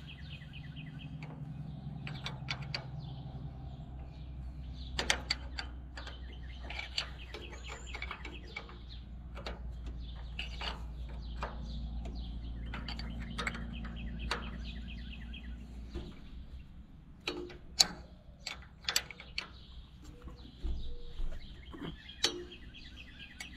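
Scattered metal clinks and knocks of a wrench working the bolts of an Allis-Chalmers D19 tractor's starter, with birds chirping in repeated trills. A low steady rumble underneath fades out about two-thirds of the way through.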